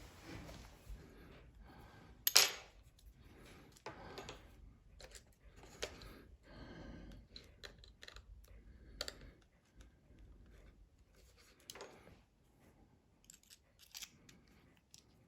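Scattered small clicks and clatters of a precision screwdriver set being handled, as bits and the plastic case are picked through. One sharper click comes about two seconds in.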